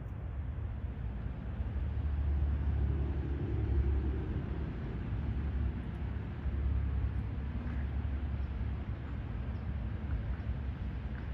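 Low steady rumble of a nearby vehicle engine, louder through the middle and easing near the end.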